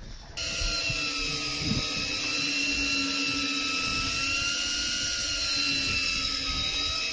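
Electric deep-drop fishing reel motor running with a steady whine, winding line in from depth. It starts abruptly about half a second in.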